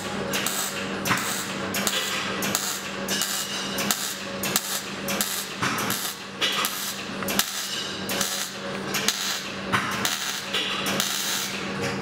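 Arc welding on thin sheet steel, with short tack welds at a panel corner. The arc crackles and sputters in quick irregular bursts, over a steady low hum.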